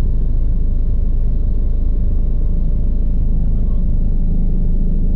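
Bell 429 twin-turbine helicopter running steadily: a loud, unbroken low drone of rotor and engine noise with faint steady whining tones above it.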